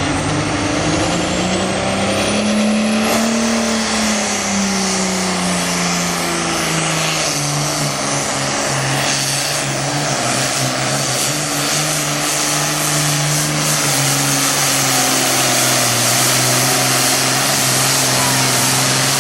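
Super farm class pulling tractor's diesel engine running hard under load down the track. Its note climbs about three seconds in, then slowly sags in steps, with a high whistle rising over the first few seconds.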